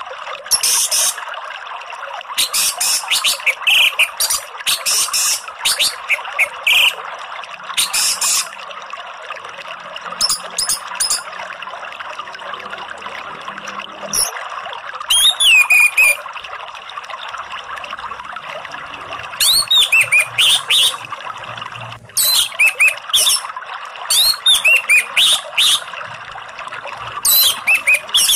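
Orange-headed thrush song in repeated loud bursts of rapid, high, sweeping notes with short pauses between phrases, over a steady rush of flowing water.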